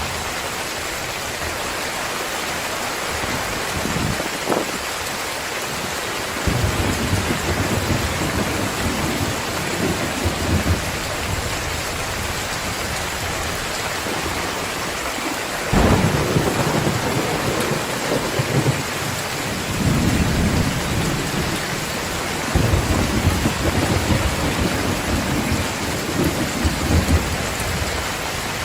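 Heavy rain pouring steadily, with thunder rumbling through it several times. There is a sharp crack about four and a half seconds in, and longer low rolls start near 16 and 20 seconds.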